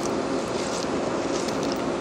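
Railway locomotive running with a steady hum, with a few short hisses on top.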